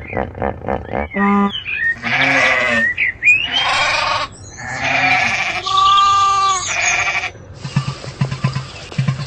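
Bleating from sheep or goat-type livestock: about six loud calls one after another, the clearest and most tonal about six seconds in. A quick, low, even pulsing takes over near the end.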